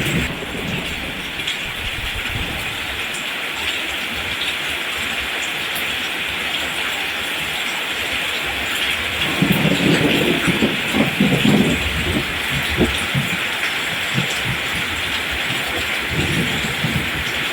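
Steady rain falling, an even hiss of drops. A low rumble of thunder swells about halfway through for a few seconds, and a weaker rumble comes near the end.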